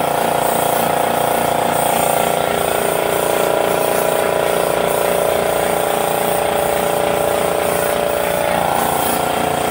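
Gravity-feed spray gun hissing steadily as it sprays black paint onto an alloy wheel, over the steady, rapidly pulsing hum of the air compressor that feeds it.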